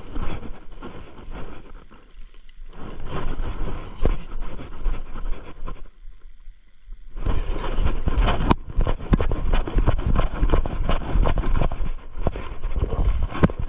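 Rustling and scraping handling noise of clothing and hands rubbing against the camera's microphone while walking through bush, broken by two brief pauses.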